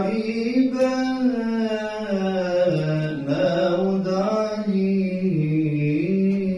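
A solo male voice chanting Islamic devotional recitation, unaccompanied, in long melodic held notes that slowly rise and fall in pitch.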